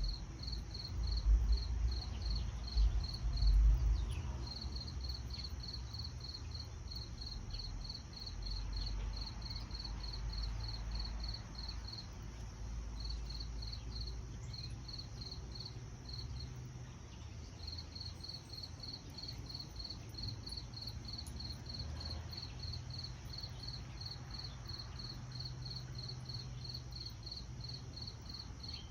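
A cricket chirping in an even rhythm of about three chirps a second, breaking off briefly a few times, over a steady high insect drone. A low rumble is loudest in the first few seconds.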